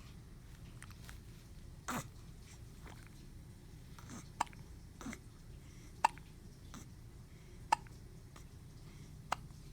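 A baby hiccuping: short, sharp hics at irregular intervals, about six of them, one every second or two.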